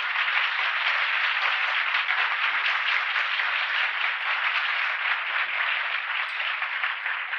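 Audience applauding steadily, a dense clatter of many hands that starts to thin out near the end, heard on an old restored live recording.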